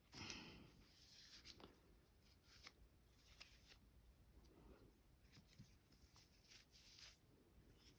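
Faint rubbing of a cloth on an oiled pistol part, with small clicks and taps of metal and plastic being handled.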